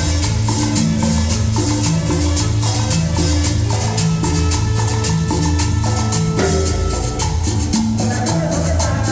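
Latin dance music with a steady beat: a bouncing bass line under melodic instruments, with a shaker-like percussion marking the rhythm in quick even strokes.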